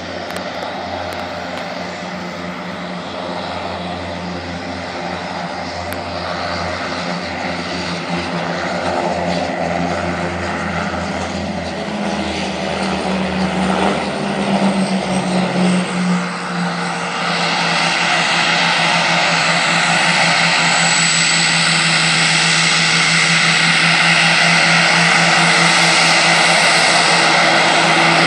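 Twin Garrett TPE331 turboprop engines of a Mitsubishi MU-2J during landing rollout and taxi: a steady propeller drone under a high turbine whine. It grows gradually louder, and the whine gets stronger about two-thirds of the way through.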